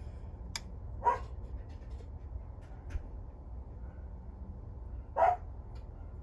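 A dog gives two short barks, one about a second in and one about five seconds in, over a steady low hum.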